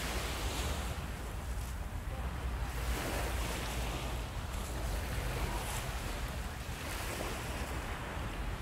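Surf washing onto a sandy beach in swelling surges every few seconds, with wind rumbling on the microphone.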